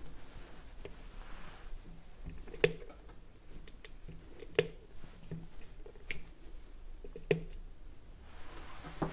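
A few sharp, separate clicks, four louder ones spread irregularly over several seconds, over a faint low hum.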